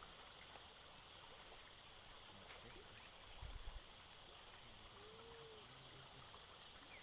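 Steady, high-pitched drone of an insect chorus, with a brief low thump about three and a half seconds in.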